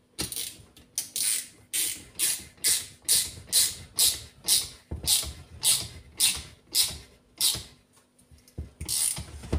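Ratchet clicking in short, regular strokes, about two a second, as a tight-fitting home-made aluminium thread insert is wound into a stud hole in the crankcase. The strokes stop near the end, with a few stray clicks after.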